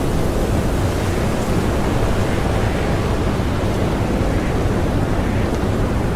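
Strong blizzard wind: a steady, dense rushing noise, heaviest in the low end, with no separate gusts or pauses.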